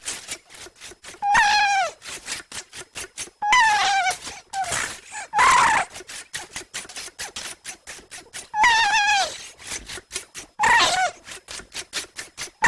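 A person making high-pitched, animal-like squeals with the voice: about six short calls, each sliding down in pitch. Fast, even clicking runs between and under them.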